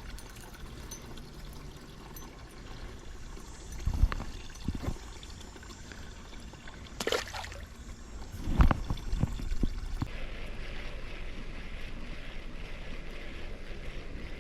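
River water running steadily, a little louder in the last few seconds, with a few dull knocks and bumps at the bank along the way.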